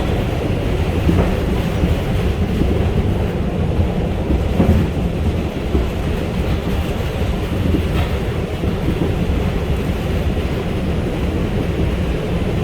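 R142 subway train running at speed on the express track, heard from inside the car: a steady, loud rumble of wheels on rail, with a few faint clacks.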